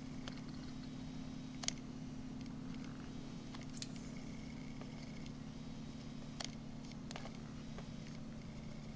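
Steady low hum with a few sharp clicks, the loudest about two seconds in.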